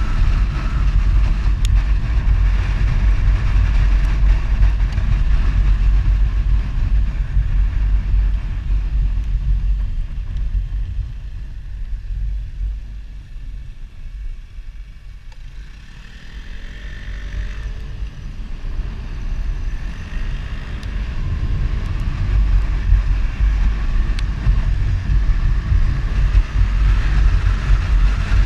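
Wind rushing over the microphone of a moving motorcycle, with the bike's engine running underneath. It eases off about halfway through as the bike slows for a hairpin bend, the engine note climbs as it pulls away, and the wind builds back to full strength as speed rises again.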